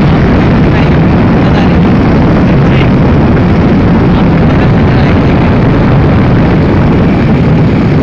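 Steady, loud rush of wind and road noise from a moving vehicle on the road, with no clear engine note.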